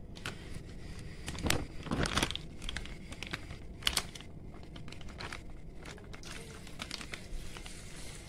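Clear plastic bag being crinkled and rustled by hand as it is worked open, with a few sharper crackles about a second and a half, two and four seconds in.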